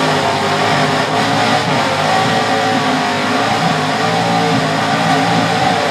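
Rock bouncer buggy's engine held at high revs under full load as it climbs a steep rock face, its tires spinning and smoking on the rock. The pitch stays fairly steady with small rises and dips.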